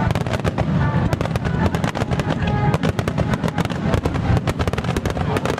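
Fireworks bursting and crackling in rapid succession, a dense run of sharp cracks over a low rumble, with music playing alongside.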